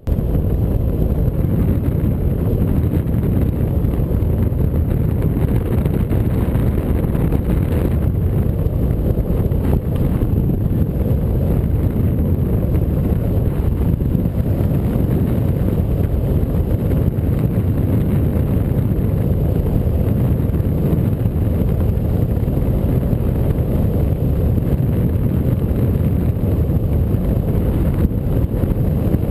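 Wind buffeting the microphone of a hang glider's wing-mounted camera in flight: a loud, steady, low-pitched rush of airflow.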